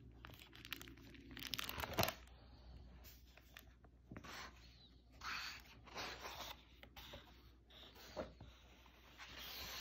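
Hardcover picture book being opened and its pages turned by hand: soft paper rustles and handling sounds, with a single sharp knock about two seconds in.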